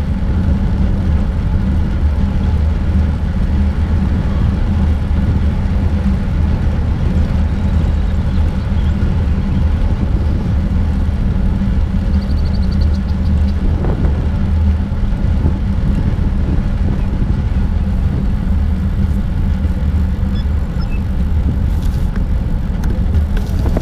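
Wind rumbling over a GoPro camera's microphone while riding a bicycle along a paved trail: a steady, loud low rumble with no break.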